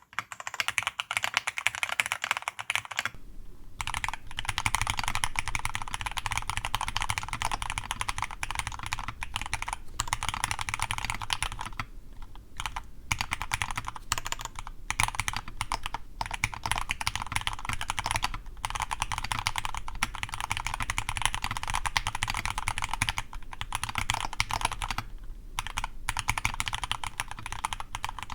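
Fast continuous typing on a custom mechanical keyboard with lubed Cherry MX Black linear switches and PBT keycaps, a dense stream of keystroke clacks broken by a few brief pauses.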